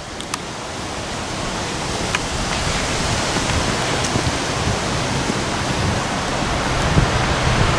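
Tropical-storm rain and wind, a steady rushing hiss that grows slowly louder.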